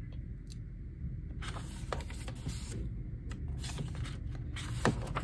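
Pages of a K-pop album photobook being handled and turned by hand: soft paper rustles and slides over a low steady hum, with a sharp little tap near the end.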